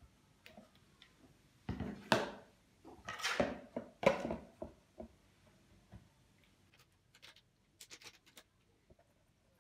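Rusty hand saw being set into an empty plastic tub: a few scrapes and knocks of metal against plastic in the first half. Near the end comes a quick run of small plastic clicks as a bottle cap is twisted open.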